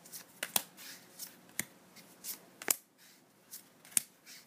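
Magic: The Gathering trading cards being flipped through by hand, each stiff card slid off the front of the stack and tucked to the back, making sharp clicks and snaps at irregular intervals, roughly one or two a second.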